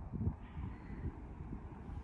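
Wind buffeting the microphone: an uneven low rumble with a faint hiss.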